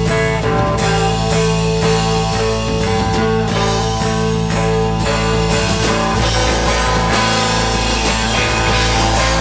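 Rock band playing live: guitars holding sustained chords over a steady drum beat.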